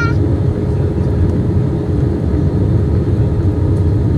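Steady cabin noise inside an Airbus A320 in flight on approach: a loud, even rumble of jet engines and airflow, with a steady hum running through it.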